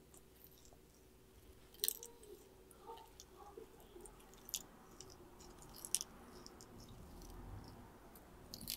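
Sulcata tortoise biting and chewing kale leaves: faint, crisp crunches and tearing of the leaves, with sharper crunches about two seconds in, near six seconds and at the end.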